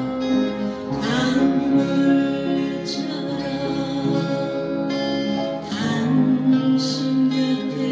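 Upright piano played with both hands, by ear, along with acoustic guitar music: a slow melody over sustained chords.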